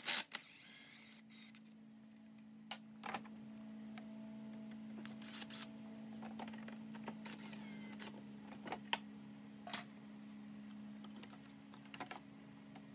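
Faint clicks, knocks and scrapes of a Ford Bronco's plastic factory intake tubing being worked loose and lifted out of the engine bay, over a steady low hum. A short, louder clatter comes at the very start.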